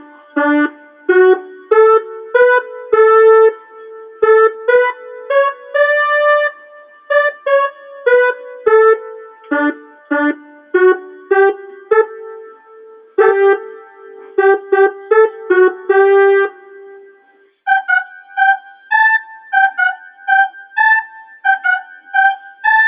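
Electronic keyboard on a brass (trumpet) voice playing a fast melody of short, punchy notes. After a short pause about 17 seconds in, the line carries on in a higher register.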